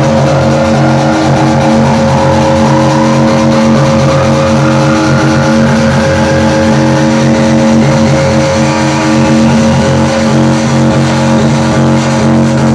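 Electronic music: a loud held droning chord with a sweep that rises slowly in pitch over it.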